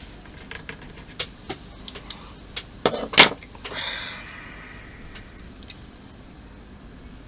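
Small model parts clicking and knocking as they are handled and fitted, a scattering of light ticks with two louder knocks about three seconds in, followed by a brief rustle.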